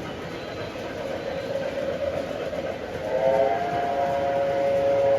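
Model train running around the layout track, with a long horn blast starting about three seconds in and held for about two seconds.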